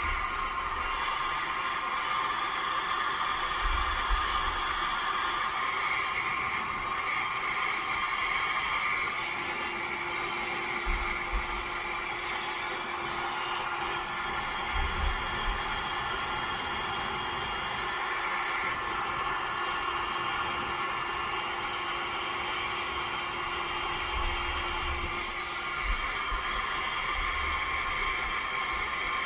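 Small handheld hair dryer blowing steadily on its heat setting, shrinking heat-shrink tubing over spliced headphone wires. A few brief low thumps come and go under the even hiss of the air.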